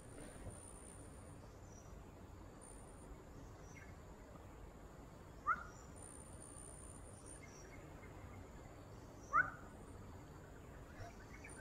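Faint outdoor ambience: a steady low hiss with a thin high insect whine coming and going, and short rising bird chirps, once about halfway through and again near the end.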